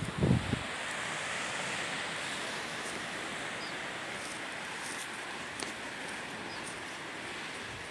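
Steady outdoor rush of wind and distant surf on an exposed coastal headland. A couple of low buffets hit the microphone in the first half second.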